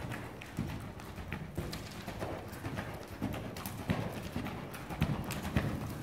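Hoofbeats of a horse cantering on the soft sand footing of an indoor arena: dull thuds with a few sharper clicks, in uneven groups.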